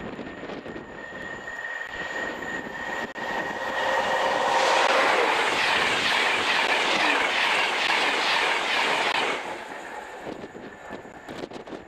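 A Class 91 electric locomotive and InterCity 225 Mark 4 coaches passing at high speed. A steady whine and noise build as it approaches, then about five seconds of loud rushing wheel and air noise as the coaches go by, dropping off suddenly as the train clears.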